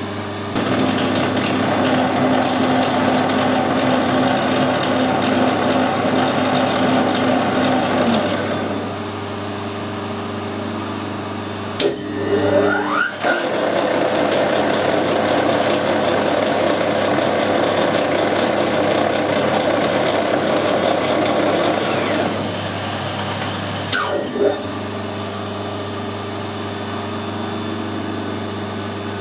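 Metal lathe screwcutting a 20 TPI UNF thread, the machine and its gear train running steadily through two louder stretches of cutting. Each stretch ends, about 12 and 24 seconds in, with a sharp click and a brief glide in pitch as the lathe is stopped and reversed to run the tool back with the feed nut left engaged.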